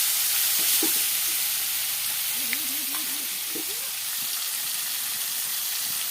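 Fish frying in hot oil, a steady sizzle.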